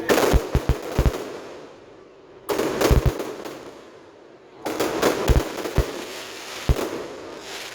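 Fireworks display: three volleys of aerial shell bursts about two seconds apart, each a cluster of sharp bangs followed by fading crackling.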